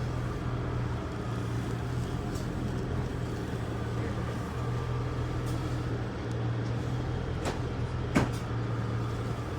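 Steady low rumble and hum of a moving train heard from inside the carriage, with a couple of short clicks near the end.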